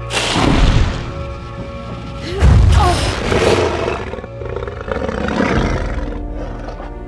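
Dramatic orchestral film score with two heavy booming crashes about two seconds apart, and a creature's roaring cry after the second.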